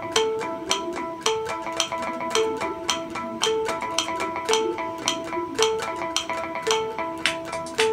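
Natural harmonics picked on an unplugged electric guitar at the fourth and fifth frets: a quick repeating figure of bell-like ringing notes with a sharp pick click on each, the figure coming round about once a second.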